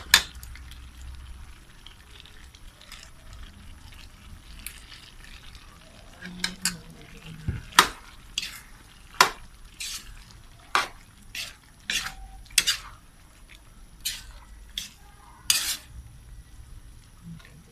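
Metal spoon stirring a thick pork menudo stew in a metal wok, clinking and scraping against the pan in irregular sharp knocks, most of them in the second half.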